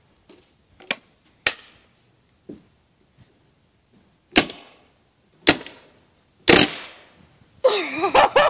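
CO2 paintball gun firing single shots, which the shooter says is getting low on CO2: a few sharp pops in the first two seconds, then three louder pops about a second apart. A person's voice calls out near the end.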